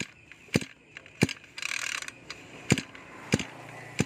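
Recoil starter of a Mitsubishi TUE21 21cc two-stroke brush cutter pulled over repeatedly with the ignition switched off to show its compression, giving a series of sharp clicks with a rope whir between pulls; the engine does not fire.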